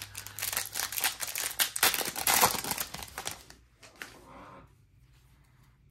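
Crinkling and tearing of a trading card pack's plastic wrapper as it is ripped open and the cards are pulled out, a dense crackle for about three and a half seconds. It then drops to a brief, quieter rustle of cards.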